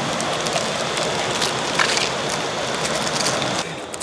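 Steady hiss of rain falling, with a few scattered sharp pops; the noise drops away abruptly near the end.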